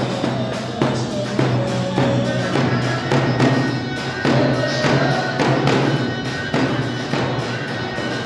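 Instrumental wedding dance music with a driving drum beat, a steady held bass note and a wavering melody line over it.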